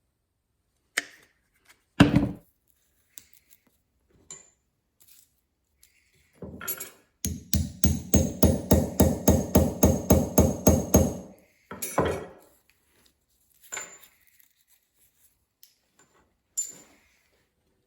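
Hammer blows on metal with a ringing tone: a few single strikes, then a quick even run of about four blows a second for roughly four seconds in the middle, then a few more single strikes.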